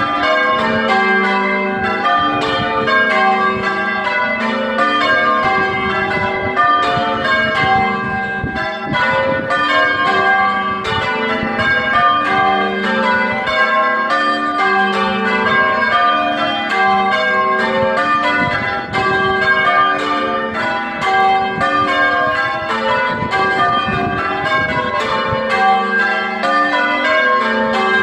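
Farnsfield's ring of six church bells being rung full-circle by English change ringers, one bell after another in a continuous, unbroken succession of strokes that ring on into each other. The back five are 1798 Thomas Osborn bells and the treble an 1860 Taylor bell. The ring is known as very oddstruck and hard to strike evenly.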